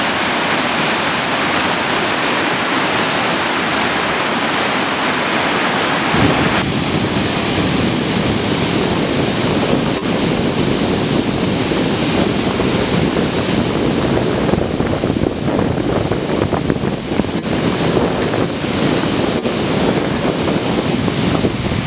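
River water rushing over a weir in high flow from a dam release, a steady loud rush of whitewater. About six seconds in it changes to a deeper, heavier rush, with wind buffeting the microphone.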